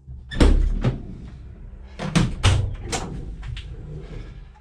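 A series of knocks and clunks from a van's open rear doors and cargo area being handled, the loudest bang about half a second in and several smaller knocks over the next three seconds.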